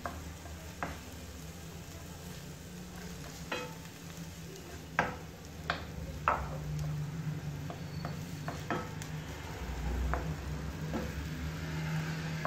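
Chopped onion sizzling in oil in a nonstick frying pan as a spatula stirs it, scraping and tapping against the pan every second or so, with the sharpest taps around five and six seconds in. A steady low hum runs underneath.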